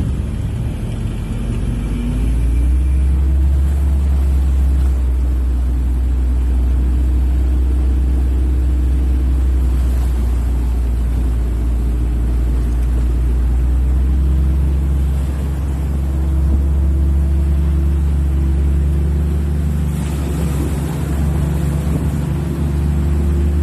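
A WWII Willys Jeep's four-cylinder engine, heard from the driver's seat as the Jeep drives through a flooded channel. The engine runs steadily with a deep rumble; its pitch rises about two seconds in as it picks up revs, then holds steady.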